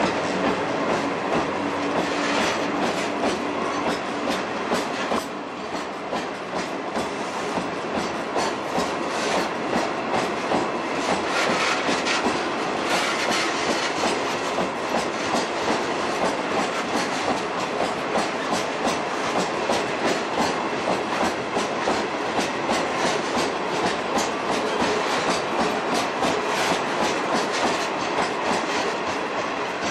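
Loaded Woki 100 ore hopper wagons rolling past at close range, their wheels clacking over the rail joints in a steady, continuous rhythm.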